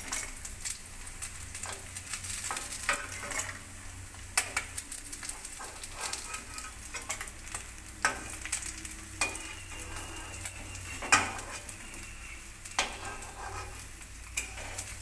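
Pieces of rohu fish frying in hot oil in a kadai, sizzling steadily, with frequent sharp scrapes and clicks of a spatula against the pan as the pieces are turned and lifted out.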